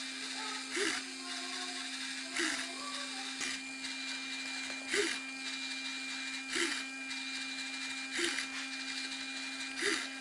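A steady mechanical hum, with a short swishing stroke repeating evenly about every one and a half seconds, as from a small machine working in a cycle.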